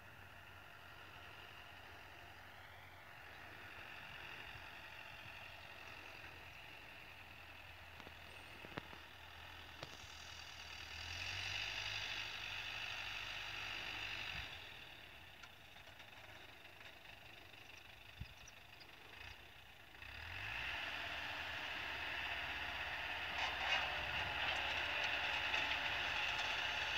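Tractor pulling a manure spreader spreading cattle manure, its engine and spreader mechanism running with a steady mechanical clatter; it grows louder about twenty seconds in as the rig comes nearer.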